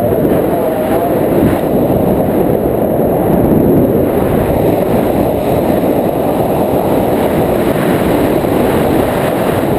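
A steady, loud, low rushing noise that holds even throughout, with no distinct strokes or pitch.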